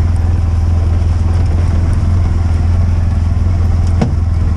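Steady low hum of a running vehicle engine, with a short sharp sound near the end.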